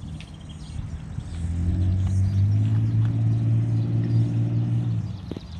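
A motor vehicle engine running with a low, steady hum. It grows louder about a second and a half in and drops away near the end.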